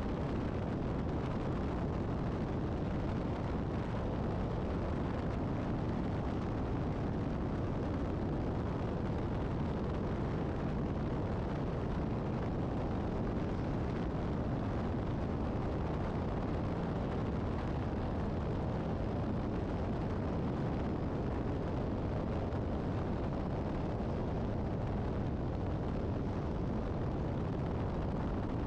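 Steady highway driving noise: tyres on the road and wind buffeting the microphone at speed, with a tractor-trailer rig running alongside. The rumble stays even throughout.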